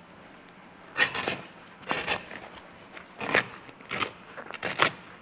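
Old convertible soft top being peeled and torn away from its frame by hand: a series of short, irregular crackling rips, about five, a second or so apart.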